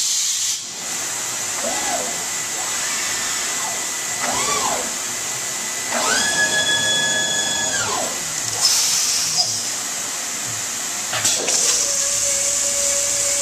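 CNC stone-edge profiling machine running with its water spray, a steady hissing machine noise, as it changes to its fourth diamond profiling wheel. About halfway through, a whine rises, holds for about two seconds and falls away. Near the end a steady hum sets in as the spindle runs on the edge of the stone slab.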